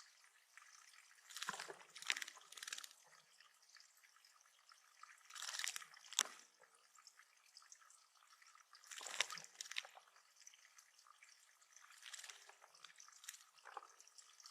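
Faint water splashing and dripping in a bird pond, in short bursts about every three to four seconds.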